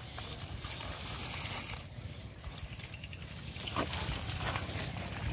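Muddy water sloshing and splashing as fish thrash in a shallow puddle and hands grope through the mud and weeds, with a few sharper splashes about four seconds in, over a steady low rumble.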